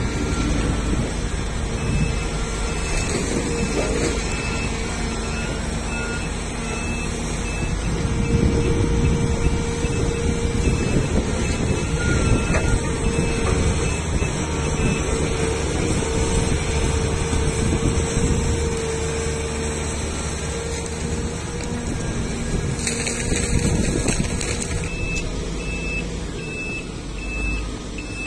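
Diesel engines of a large hydraulic excavator and dump trucks running steadily, with a truck's reversing alarm beeping at a high pitch. The beeping stops about halfway through and starts again near the end.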